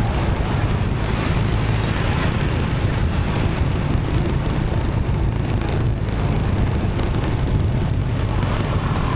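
Motorbike riding in city traffic, heard from the bike: its engine, tyre noise and passing cars and motorbikes blend into a steady low rumble.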